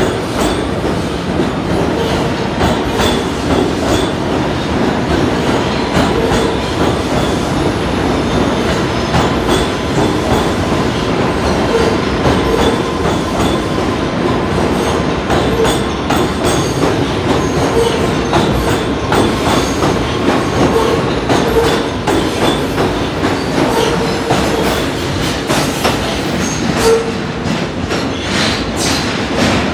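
R211T subway train departing a station and running past the platform: a steady loud rumble with wheels clicking and knocking over rail joints, and a thin steady whine that fades out about two-thirds of the way through. Near the end, as the last car enters the tunnel, the wheels give a brief high squeal.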